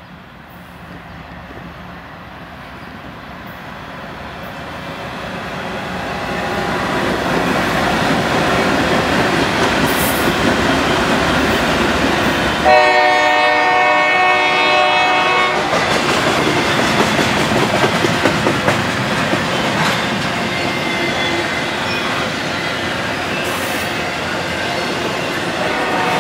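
Norfolk Southern diesel locomotives hauling a double-stack container train grow steadily louder as they approach and pass. About halfway through the engines sound one horn blast of roughly three seconds. It gives way to the steady rolling noise and rapid wheel clicks of the container cars going by.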